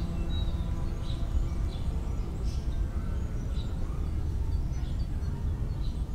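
Outdoor city ambience: a steady low rumble with a bird chirping through it, short high calls every second or so.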